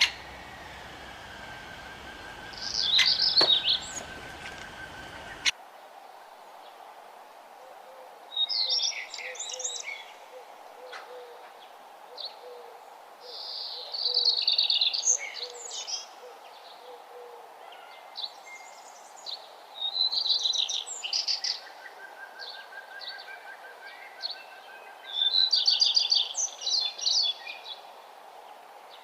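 A songbird singing: bursts of rapid, high chirping notes, each a second or two long, repeating every five to six seconds over a faint steady background. A low background rumble drops away abruptly about five seconds in.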